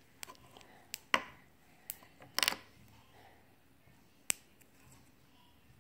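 Fluffy slime being kneaded and stretched by hand, giving about six sharp pops and clicks as air pockets burst. The loudest comes about a second in, with a quick cluster a little after two seconds and one more past four seconds.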